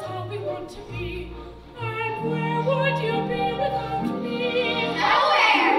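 Live opera: singers with vibrato over an instrumental accompaniment that moves in stepped low notes, with a brief loud, noisy swell near the end.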